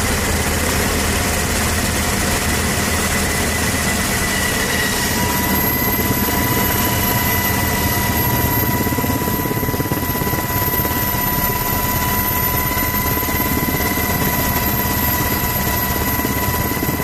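Helicopter heard from aboard: a loud, steady drone of turbine and rotor noise with a thin, steady whine, and a second higher whine joining about five seconds in.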